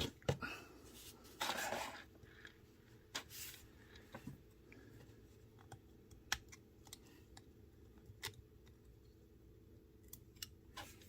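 Small metal parts of a folding knife clicking and scraping as it is taken apart at the pivot: a short scrape about a second and a half in, then scattered sharp clicks.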